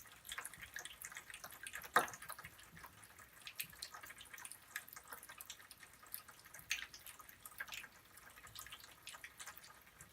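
Mr. Bubble Magic Bath Crackles crackling in water: a steady run of small, irregular pops and ticks, with one sharper pop about two seconds in.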